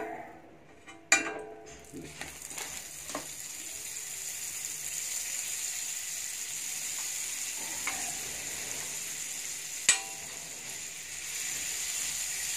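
Butter sizzling as it melts on a hot tawa (flat iron griddle). The sizzle builds over the first few seconds and then holds steady, with a sharp knock about a second in and another near the end.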